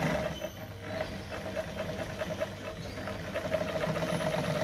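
Brother Pacesetter Super Deluxe sewing machine running, sewing a straight stitch through fabric: a steady motor hum with the fast, even clatter of the needle mechanism, getting a little louder toward the end.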